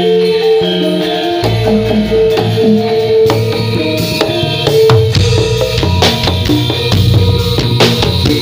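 Live Javanese gamelan-style music with drums: held, ringing pitched notes over a steady drum beat that comes in heavier about a second and a half in.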